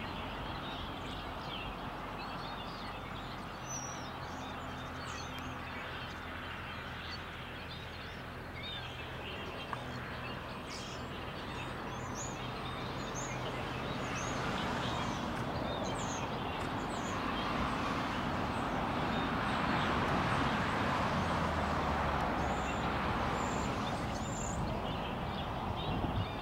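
Outdoor ambience: small birds chirp again and again over a steady rushing background that grows louder in the second half. A low hum sits underneath in the first half.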